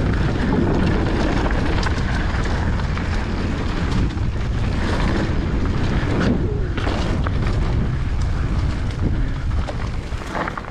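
Wind buffeting the microphone and mountain bike tyres rolling fast over a dirt trail through berms, with the bike rattling; it eases near the end.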